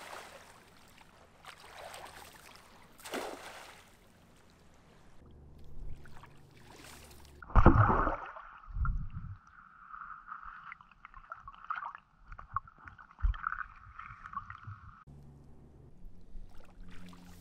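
Cast net splashing down on lake water. Then a loud low thump, followed by several seconds of muffled underwater sound through a submerged waterproof camera, with low knocks, cutting off suddenly.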